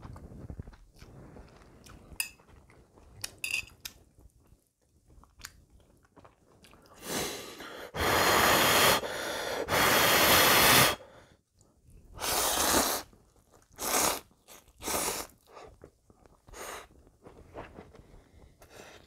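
A man slurping hot instant ramyeon noodles, several long, loud slurps clustered around the middle, with quieter chewing and mouth smacks before and after.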